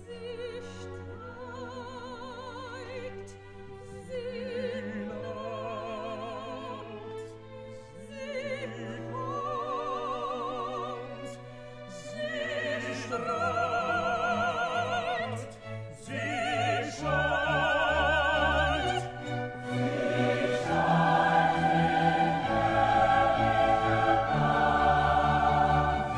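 Classical music: an orchestra with an operatic voice singing with vibrato. It grows louder and fuller about halfway through.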